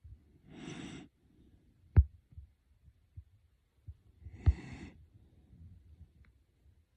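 Snoring: two long, noisy snore breaths about four seconds apart. Sharp low thumps come about two seconds in and again during the second snore, and they are the loudest sounds.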